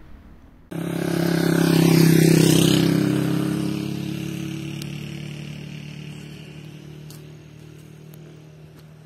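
A motor vehicle's engine passing close by, loudest about two seconds in and then fading away slowly as it recedes.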